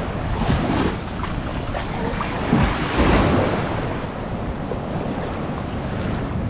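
Small sea waves breaking and washing up a sandy shore, swelling to a louder wash about three seconds in, with wind buffeting the microphone.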